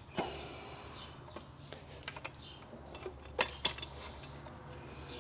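Fuel injectors and the fuel rail being pressed into place by hand on a Ford 5.0 V8's intake manifold: scattered light clicks and taps, the loudest two close together about three and a half seconds in, over a faint steady low hum.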